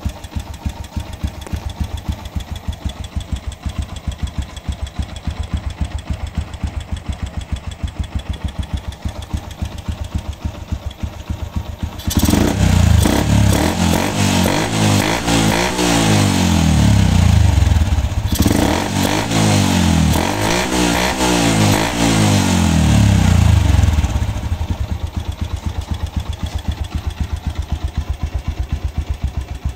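Yamaha Sniper MX135's single-cylinder four-stroke engine running through a kalkal (gutted stock) exhaust. It idles, is revved up and down in a series of throttle blips from about twelve seconds in, dips briefly around eighteen seconds, then settles back to idle near twenty-four seconds. The exhaust note is crisp and fairly loud, 'malagapak na matining'.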